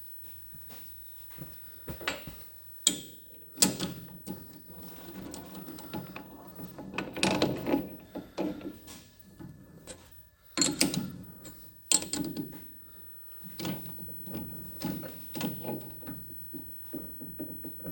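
Irregular metallic clunks, knocks and clatter of a workpiece and tools being handled and set up on a lathe, with no machine running.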